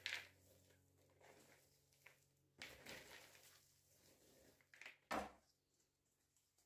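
Dry bark chips rustling and crunching under gloved hands in a plastic basin, in a few short bursts, the loudest right at the start and about five seconds in.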